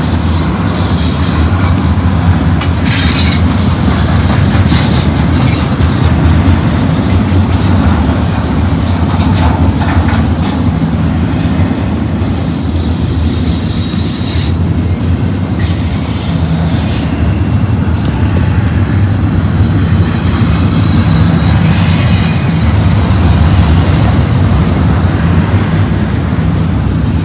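BNSF double-stack intermodal freight train's well cars rolling past close by: a loud, steady rumble of steel wheels on the rails, with high wheel squeal coming and going several times.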